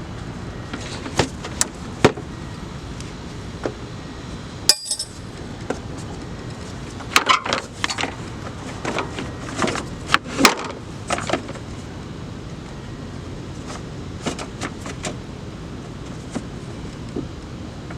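Scattered metallic clinks, taps and knocks of hand tools and parts being handled while working on a car's engine bay, with a cluster of them near the middle, over steady background noise.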